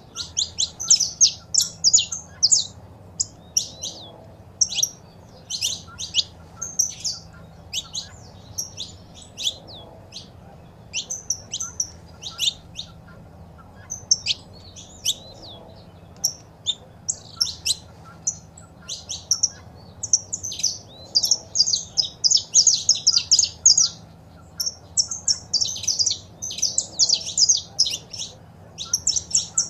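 Saffron finches chirping and singing: short, high, rapid notes, scattered at first and then in faster, denser runs about two-thirds of the way through.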